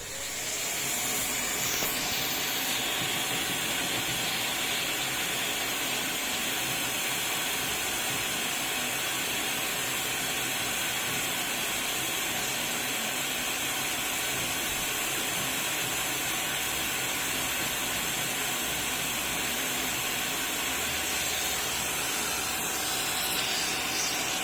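Vacuum cleaner switched on, its motor coming up to speed in the first second, then running steadily with a hiss of rushing air.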